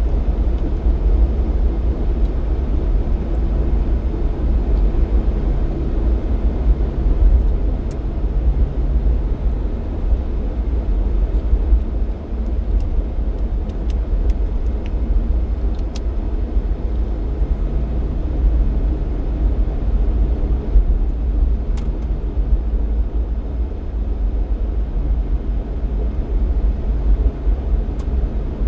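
Jeep Cherokee XJ driving at a steady pace: a steady low rumble of engine and road noise with a faint engine hum that fades in and out.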